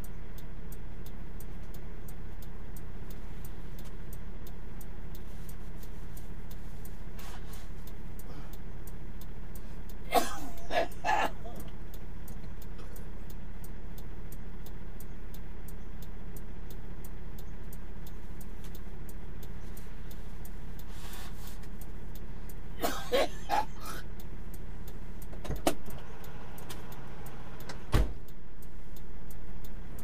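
Semi truck's diesel engine idling steadily, heard from inside the cab, with the truck stopped. Twice the hum is broken by brief vocal sounds from the cab, and two sharp clicks come near the end.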